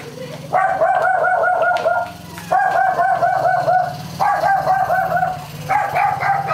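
A dog barking in rapid volleys: four runs of quick, evenly paced barks, about six a second, each run lasting about a second and a half with short breaks between.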